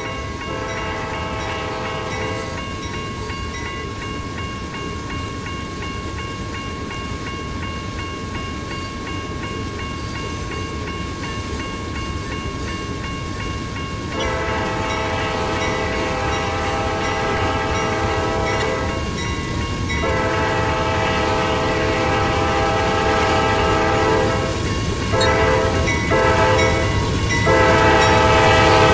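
Diesel locomotive horn sounding at the start and again later: two long blasts, a short one and a final long one, the standard grade-crossing signal. Beneath it the rumble of the train grows louder as it approaches.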